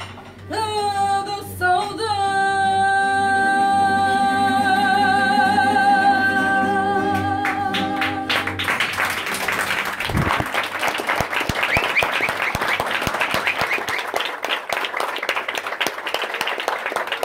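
A woman singing fado holds a long final note with a wavering vibrato over guitar accompaniment, which ends about eight seconds in. The audience then applauds.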